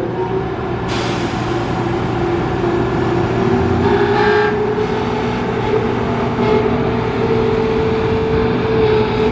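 KTX-I high-speed electric train's power car starting to move off slowly: a steady electric whine that climbs slightly in pitch, over a low steady hum. A layer of hiss comes in about a second in.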